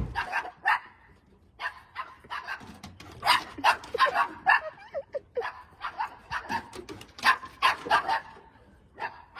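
A dog barking over and over, about three barks a second.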